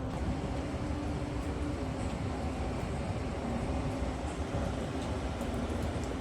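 Heavy diesel engine running steadily, a continuous low rumble with a faint hum over it.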